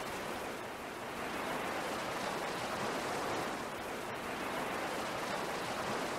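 A steady, even hiss like rushing water.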